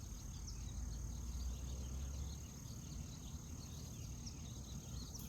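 A steady, high-pitched insect trill, like a cricket chorus, over a low rumble, with scattered faint short chirps.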